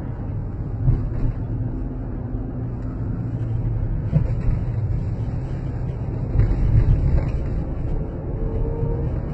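Chrysler 300C running, a steady low rumble with a faint whine over it, the unexplained whining noise the car is making.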